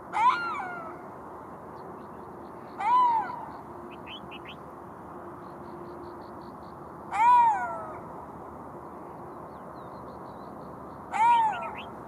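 Golden jackal calling: four short calls a few seconds apart, each a wail that rises and then falls in pitch.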